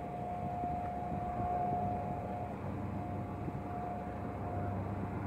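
Distant jet airliner climbing away after takeoff: a steady low rumble with a thin, steady whine over it.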